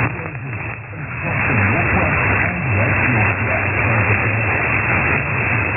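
Weak, distant AM medium-wave broadcast on 1377 kHz from an 80-watt station, heard through a software-defined receiver: a faint voice buried in heavy hiss and static, with a muffled sound that has no treble. The level dips briefly near the start.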